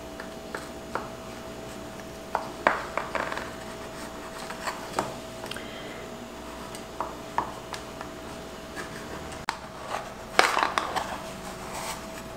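Kitchen knife cutting a baked brownie in an aluminium baking pan: scattered light taps and scrapes of the blade against the pan, with a louder cluster of scraping about ten seconds in as a square is worked free with a metal server.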